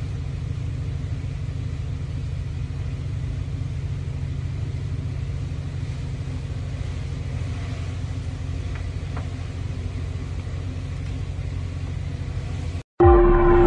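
Steady low rumble with an even background hiss, unchanged throughout. It cuts off abruptly near the end, and loud outro music begins right after.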